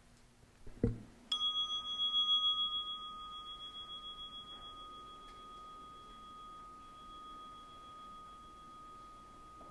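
A single meditation-bell chime sounds once, a little over a second in, just after a soft knock: a clear ringing tone with a higher overtone that dies away sooner, wavering at first and then slowly fading. It opens a period of silence after the sermon.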